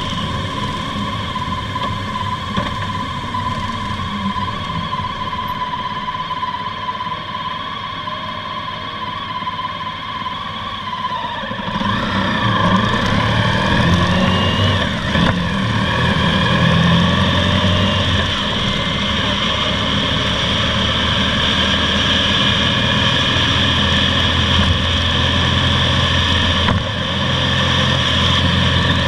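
Honda ST1300's V4 engine and road noise heard from a camera mounted on the motorcycle, low and steady at first. About twelve seconds in it gets louder and rises in pitch as the bike pulls away through a turn, then runs steadily at cruising speed.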